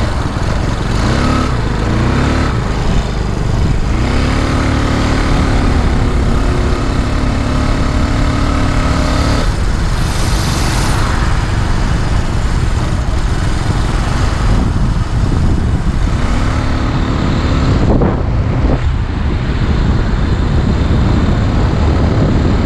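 Small 49cc four-stroke engine of a motorized bicycle running under way while it is being broken in, its pitch climbing a few times as it speeds up and holding steady in between, over heavy wind noise on the microphone.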